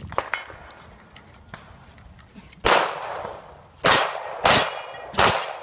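Four gunshots: one about two and a half seconds in, then three more in quick succession. Each of the last three is followed by the ring of a steel target being hit.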